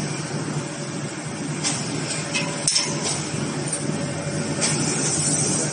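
Steady low machine hum with a few sharp metallic clicks as the chain-link wire mesh and the fence machine's location pins are handled.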